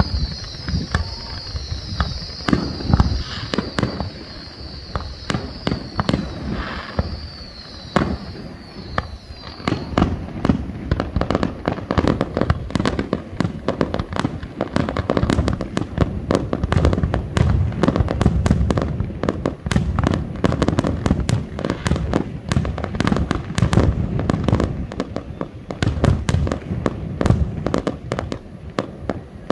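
Fireworks display: aerial shells bursting with sharp reports and crackle, over a high-pitched hiss for the first ten seconds, then building to a dense, rapid barrage of bangs.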